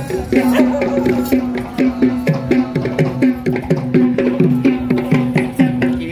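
Music: a fast run of drum strokes, each dropping in pitch, over a steady held drone note.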